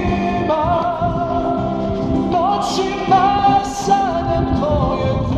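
A man singing a Serbo-Croatian pop ballad into a handheld microphone, holding long notes with vibrato, over backing music.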